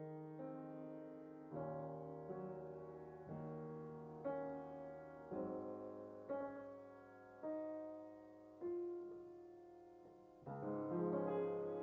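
Slow, soft piano music: chords struck about once a second and left to fade, with a louder, fuller chord near the end.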